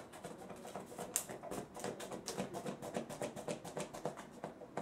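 Kitchen scissors cutting through a corrugated polypropylene (coroplast) sheet: a rapid, irregular run of short snips, several a second.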